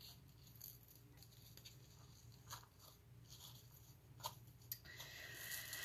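Faint rustling and small clicks of a sheer ribbon and card stock being handled as a bow is pulled tight, with a couple of slightly sharper ticks past the middle.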